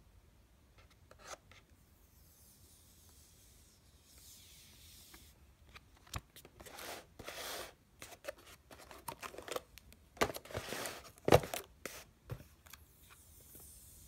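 Fingers scratching at and peeling back the printed plastic protective film on a Samsung Galaxy Tab 4 tablet's screen. A series of short scratches and rustles starts about six seconds in, the loudest coming about eleven seconds in.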